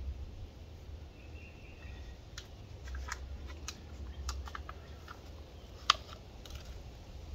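Irregular light clicks and taps of small plastic nursery pots knocking in a plastic seedling tray as they are handled, one sharper click about six seconds in, over a steady low rumble.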